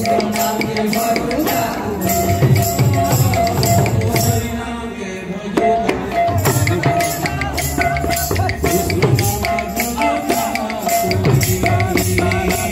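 Kirtan accompaniment: small brass hand cymbals clashing in a fast, steady rhythm over strokes of a two-headed barrel drum, with a steady held tone beneath.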